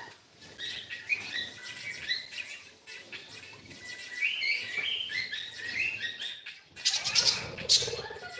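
Pet cockatiel chirping in short, repeated twittering calls. Near the end comes a brief burst of loud scratchy rustling.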